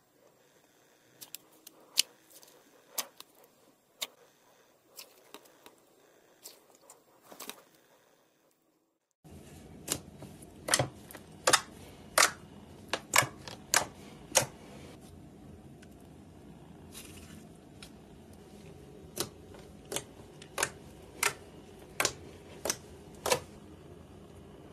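Fingers poking and pressing glossy slime, making sharp clicking pops as trapped air bursts, roughly one every half second to a second. After a short gap about nine seconds in, the pops continue over a steady low background hum.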